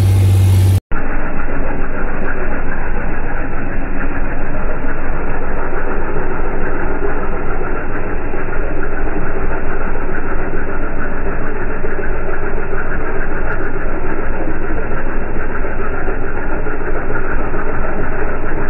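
A vehicle engine runs steadily under load while towing a field cultivator through the soil. After a brief dropout about a second in, it carries on steady and muffled.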